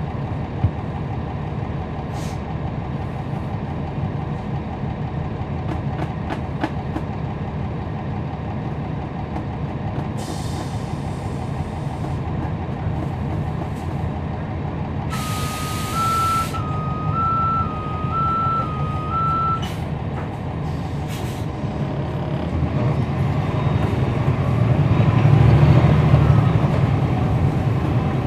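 Cummins ISL9 diesel of a NABI 40-SFW transit bus running steadily, heard from inside the cabin. About 15 seconds in there is a sharp burst of air hiss and an alternating two-tone beep for about four seconds. Near the end the engine grows louder as it works harder.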